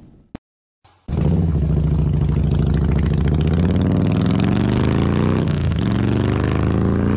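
Harley-Davidson V-twin motorcycle accelerating away, its engine note climbing steadily, dropping briefly at a gear change about five seconds in, then climbing again. It cuts in suddenly about a second in, after a brief silence.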